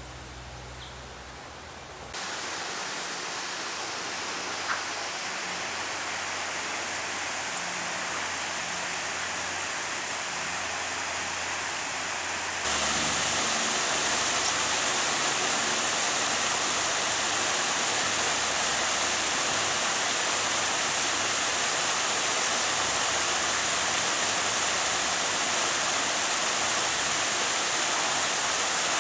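Small waterfall cascading down stepped rock ledges, a steady rushing of water that gets louder about 2 seconds in and again about 13 seconds in.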